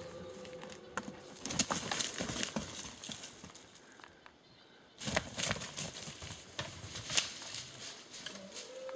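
Crunching and snapping of footsteps moving through leaf litter and twigs in forest undergrowth, an uneven run of crackles broken by a short near-quiet gap about four seconds in.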